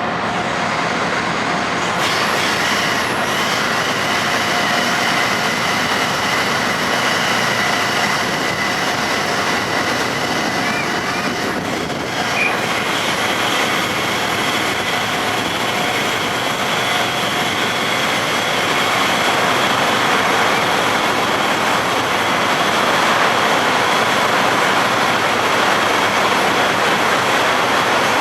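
Steady machinery drone of the car ferry Reimei Maru's engines and thrusters while it leaves the berth, with a few faint high whining tones over the noise; it grows slightly louder about two-thirds of the way through.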